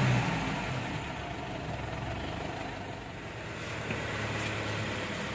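Mitsubishi Strada Triton's diesel engine idling at a raised speed just as its small injection quantity learning completes; the louder low running falls off in the first half-second to a quieter, steady idle.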